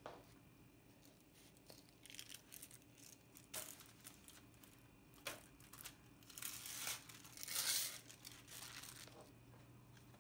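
Packaging being crinkled and torn in a series of scratchy bursts, the loudest about three-quarters of the way through.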